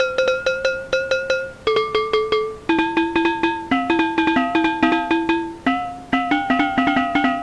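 Music: a melodic loop of short, plucked-sounding notes in a quick repeating pattern that steps between pitches, with no drums or bass, typical of a Vina House melody sample.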